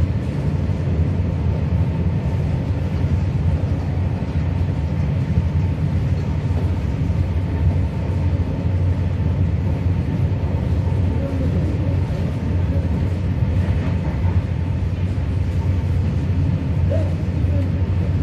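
Steady low rumble of a passenger train running at speed, heard from inside the carriage: wheels on the rails and the carriage's running noise.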